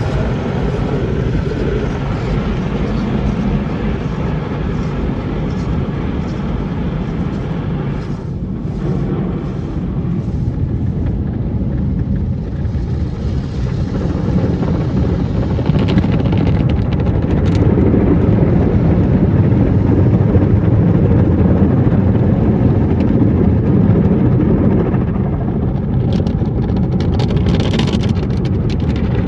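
Rotating brushes of a Christ Evolution tunnel car wash scrubbing the car as water sprays over it, heard from inside the car as a steady low rumble that swells a little in the middle.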